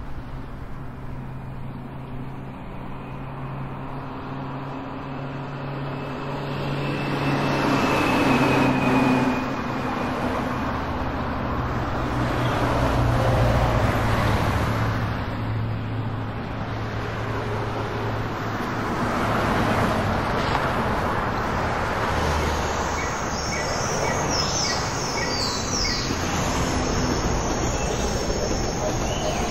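Library traffic sound effect: a steady low engine hum with a wash of passing vehicles that swells and fades several times. Short high chirps come in during the last third.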